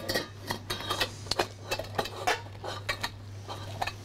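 Silicone spatula pressing and scraping roasted fish heads and bones in a stainless-steel mesh sieve over a saucepan, with irregular clinks and scrapes, to squeeze the last juices into the sauce. A steady low hum runs underneath.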